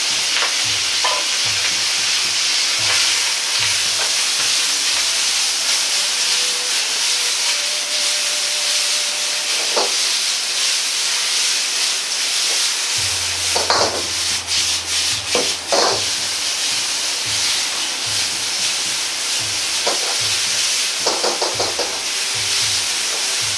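Sliced pork sizzling in oil in a hot Chinese wok as it is stir-fried with long cooking chopsticks: a steady frying hiss, with a few short scrapes against the pan in the second half.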